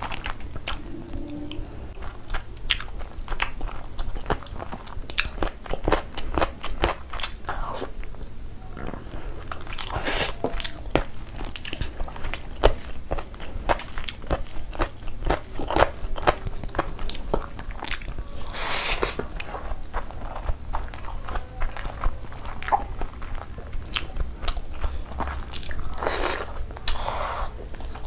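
Close-miked chewing and biting of chicken curry with rice eaten by hand: a steady run of wet mouth clicks and smacks, with a few louder, longer smacks about ten, nineteen and twenty-six seconds in.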